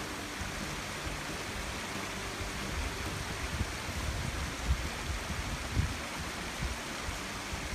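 Shallow rocky river running over stones, a steady rushing wash, with a few low thumps about two-thirds of the way through.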